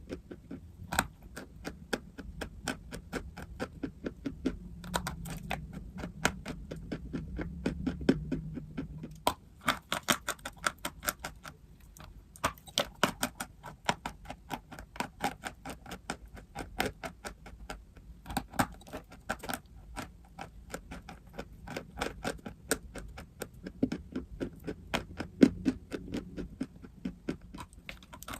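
Dry chalk and clay crunching: long runs of crisp cracks, several a second, with brief pauses between the runs.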